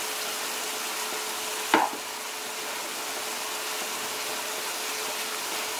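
Sliced onions, tomatoes and green chilies frying in butter in a wok: a steady sizzle, with a faint steady hum underneath and a single sharp knock a little under two seconds in.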